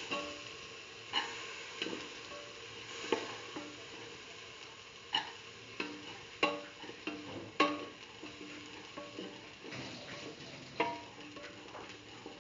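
A metal spatula scraping and clinking against a steel pressure cooker while split chickpeas, beetroot and red chillies are stirred in hot oil, over a steady sizzle. The clinks come at irregular intervals, and the sharpest comes about seven and a half seconds in.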